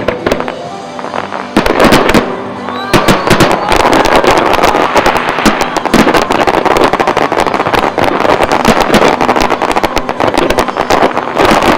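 Aerial fireworks display: loud bangs of shells bursting, sparse at first, then from about three seconds in a dense, continuous crackle of many rapid reports.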